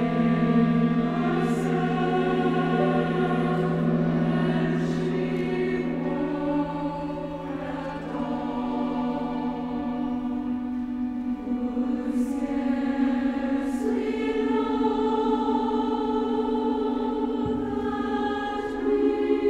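Large mixed choir singing slow, long-held chords with orchestral accompaniment; a low sustained note underneath drops out about halfway through, and the singers' soft 's' sounds show a few times.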